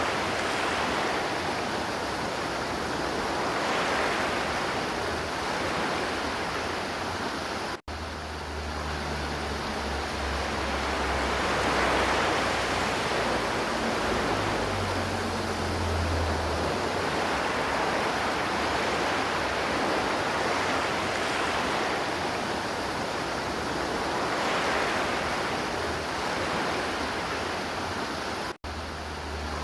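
River water flowing steadily, a constant rush that swells gently now and then. The sound cuts out for an instant twice, about eight seconds in and near the end.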